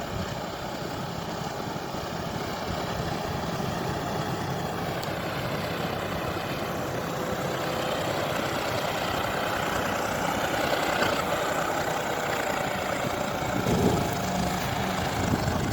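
John Deere 5405 tractor's common-rail diesel engine running steadily, its pitch and loudness rising gradually partway through as it works harder.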